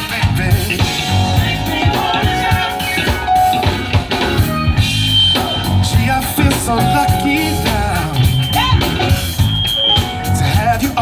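Live band playing an old-school R&B tune with drum kit and bass under a steady beat.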